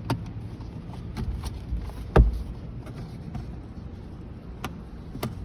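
Scattered clicks and taps of a small pry tool working at the plastic cap over a car sun visor's mounting screws, with a louder knock about two seconds in, over a steady low hum.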